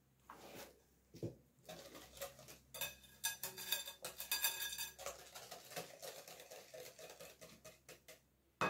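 Hand wire whisk beating liquid cake batter in a glass bowl: a run of fast wet swishing with the wires clinking against the glass. A single sharp knock near the end.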